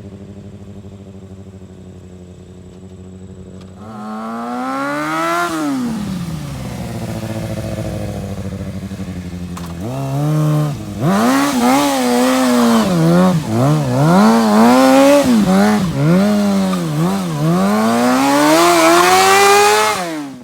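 Motorcycle engine idling. About four seconds in it is revved once, rising and falling in pitch; from about ten seconds it is blipped over and over in quick rises and falls, ending on a longer rising rev.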